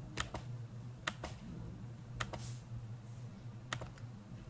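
Sparse clicks of a computer mouse and keyboard: three quick pairs of clicks about a second apart, then a single click, over a low steady hum.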